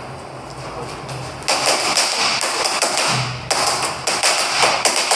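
Boxing gloves slapping against focus mitts in quick flurries of punches, starting about a second and a half in and repeating several times a second.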